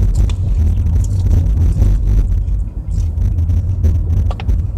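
Steady low road and engine rumble inside a moving car's cabin, with a few light clicks near the end.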